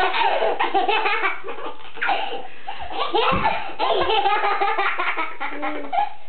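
A baby laughing in hearty bursts, with short breaks for breath.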